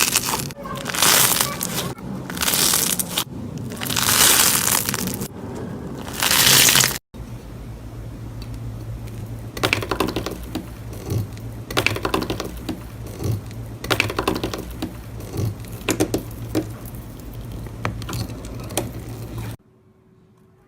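Slime being squeezed and pressed by hand, crackling and popping. At first there are loud crunching squeezes about once a second; after a sudden change about seven seconds in come many small, quick crackles.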